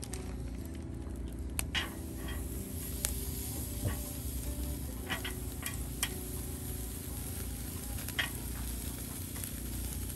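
Marinated beef short ribs sizzling as they are laid on a wire grill over a wood fire, with a handful of sharp crackles scattered through.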